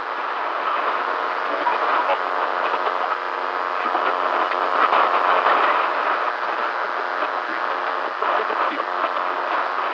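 Weak-signal radio news broadcast: steady static hiss and crackling interference over a distorted, garbled broadcast. The sound is thin, with no deep bass and no top end.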